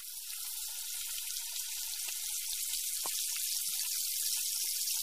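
Sliced pork belly sizzling on a tabletop Korean barbecue grill plate: a steady high hiss with scattered small crackles, growing slightly louder.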